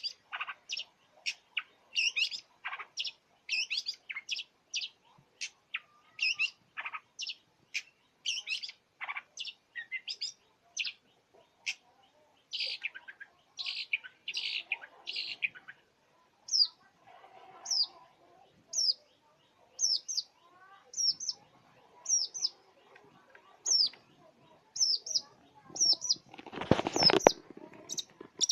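Long-tailed shrike (cendet) singing a fast, varied song packed with mimicked phrases: at first a dense run of short, sharp notes, then evenly repeated short down-slurred whistles. A loud harsh burst comes near the end.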